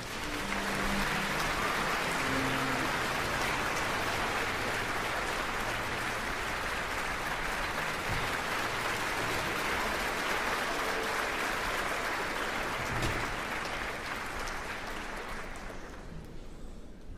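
A large theatre audience applauding as the conductor takes the podium, a dense steady clapping that dies away near the end.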